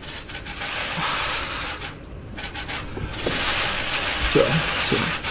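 A man breaking down in tears at a microphone: ragged, shaky breathing and sniffling. Near the end come two brief catches of the voice as he sobs.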